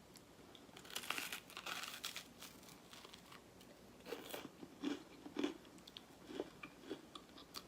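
Crispy garlic bread being bitten and chewed up close: a crunching bite about a second in, then a string of separate crunching chews from about four seconds in.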